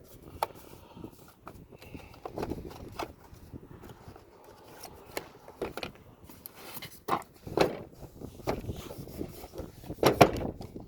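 Hand tools and their packaging being handled: scattered light knocks, clicks and scrapes at uneven intervals as items are picked up and set down, with a louder knock about ten seconds in.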